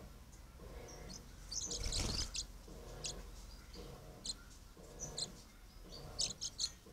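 Green parakeets giving short, high chirps on and off, with a louder flurry about two seconds in and a quick run of chirps near the end.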